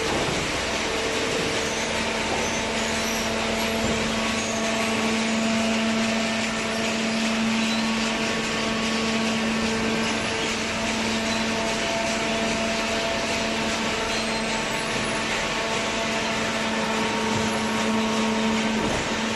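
Hydraulic paper baler running: a steady machine hum and hiss from its motor and hydraulic pump, with a humming tone that comes in about a second and a half in and holds steady.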